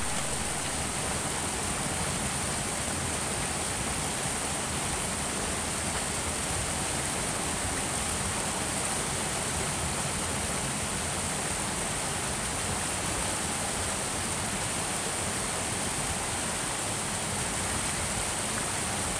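Stream water rushing steadily over a small rocky cascade: a constant, even hiss of falling water.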